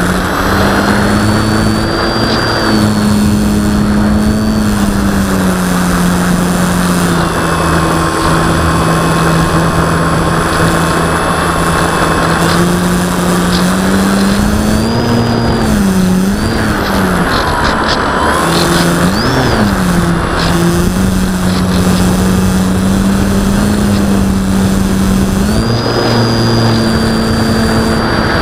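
Parkzone Sport Cub RC airplane's electric motor and propeller running steadily, heard from the onboard camera with wind rushing over the microphone. The motor's pitch dips and swoops twice in the middle, then settles back.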